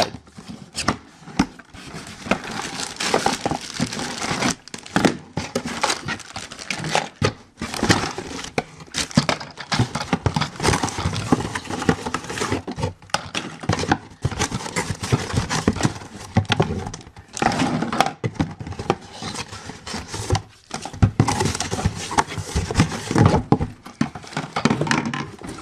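Cardboard toy box being opened and its plastic packaging handled: irregular rustling and crinkling with small knocks.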